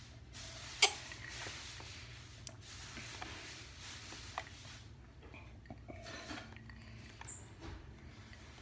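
Quiet rubbing and rustling with one sharp click about a second in, followed by a few lighter ticks and taps.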